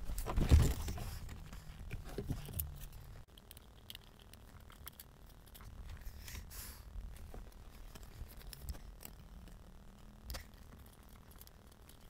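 Small handling noises of plastic instrument-cluster parts being worked on by hand: rustling and knocks in the first three seconds, then only faint scattered clicks and a brief scrape.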